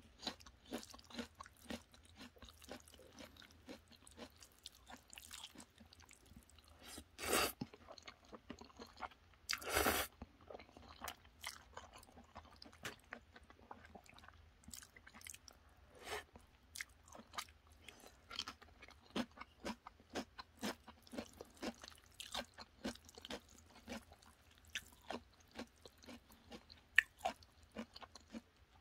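Close-miked chewing of jjajangmyeon noodles with kimchi and pickled radish, a steady run of small wet crunches and mouth clicks. Two longer, louder noises come about seven and ten seconds in.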